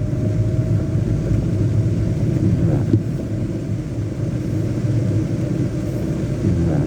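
Heavy rain pouring down steadily, a dense low rumble of falling and running water.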